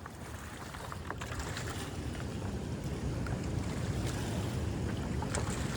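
Wind buffeting the microphone: a low rumble that grows steadily louder, with a few faint clicks.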